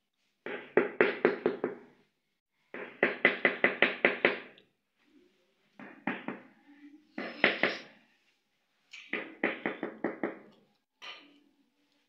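Ceramic tile being tapped into its mortar bed in several runs of quick knocks, about five a second, with short pauses between runs.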